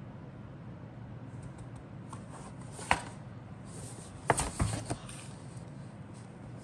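Cardboard model-kit box being handled and turned over by hand: light rustling and sliding, one sharp tap about three seconds in, then a quick cluster of knocks a little over a second later.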